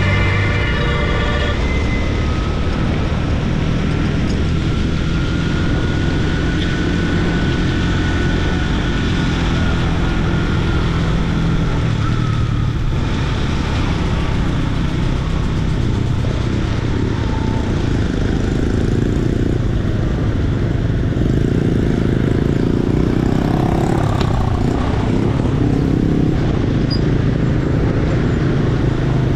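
Motorcycle running at steady road speed among traffic, with a constant rush of road and wind noise. A vehicle horn sounds through the first second and a half.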